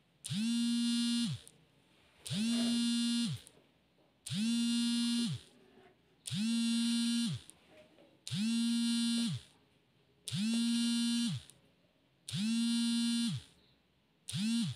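A buzzer beeping in long, even tones, one about every two seconds: seven full beeps, and an eighth starts right at the end. Each tone slides up into pitch as it starts and drops away as it stops.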